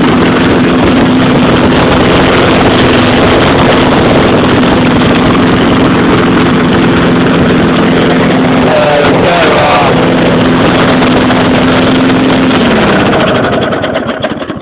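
Small 4-horsepower lawn mower engine running at a steady speed, then slowing and dying away near the end as it is shut off. The owner says it runs badly and needs a tune-up.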